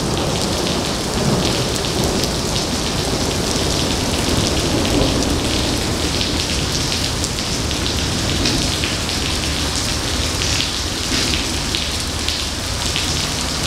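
Heavy thunderstorm rain pouring steadily onto wet pavement, a dense hiss full of fine spattering ticks.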